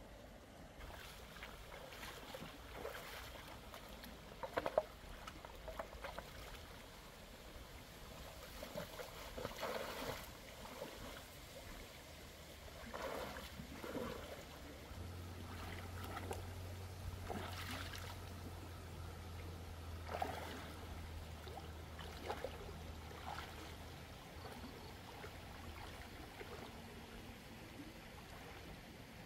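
Shallow stream running over rocks, with irregular splashes as a person wades through it and dips their hands into the water. A faint low steady hum sits under it for several seconds in the middle.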